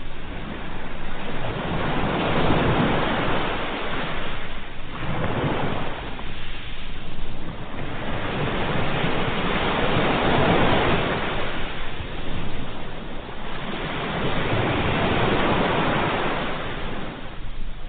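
Sea waves washing in and drawing back, the surf swelling and fading about four times, a few seconds apart.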